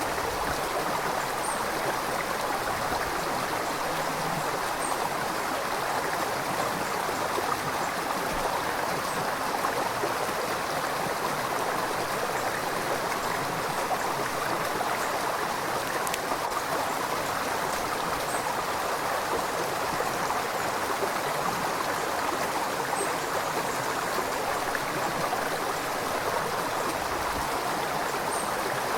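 A river flowing: a steady, even rush of moving water that holds constant throughout.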